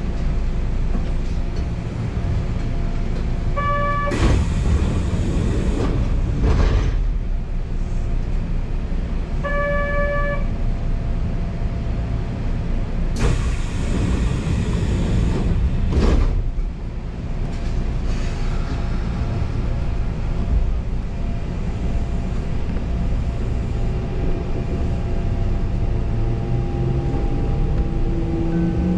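Electric commuter train standing at a station with a steady rumble: two short chimes about six seconds apart, two long bursts of air hiss, then the traction motors whining up in pitch as the train pulls away.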